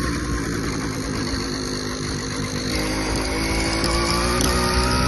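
Motorized bicycle engine running, its pitch and loudness rising gently from about halfway through. It carries a strange noise that the owner cannot identify.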